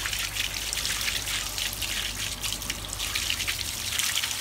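A stream of dirty, greasy water gushing out of a 2-inch drain cleanout and splashing onto the ground as a hydrojetter flushes the grease-clogged kitchen line.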